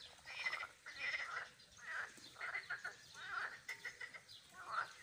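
Chorus of tree frogs calling: quick runs of rasping, clicking croaks that come in bursts about once a second.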